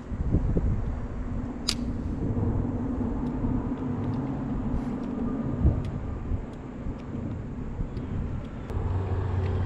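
Steady low engine rumble with a humming tone whose pitch shifts partway through, and one sharp click about two seconds in.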